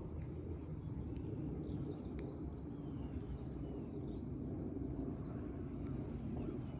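Steady low rumble of a combine harvester running, with insects trilling and a few faint bird chirps over it.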